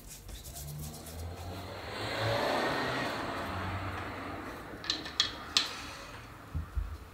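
Three sharp metallic clicks about five seconds in and two dull knocks near the end as the grease cap and its metal retaining plate are fitted back onto a power tool's grease-filled gear housing, after a broad rushing noise that swells and fades in the first half.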